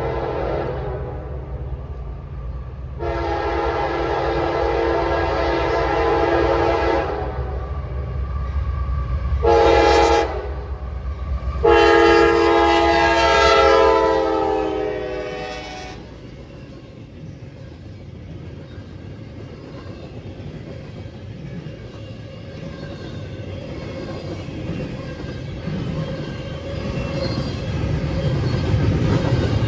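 Diesel locomotive's horn sounding a chord in a long blast, a short blast and another long blast, over the low rumble of the train. The rumble grows louder near the end.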